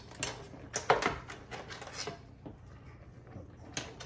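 Metal spoon clinking and scraping against a metal pot and crab shells while crab and shrimp stew is dished into a bowl. A cluster of clinks and knocks comes in the first two seconds, then it goes quieter, with one more knock near the end.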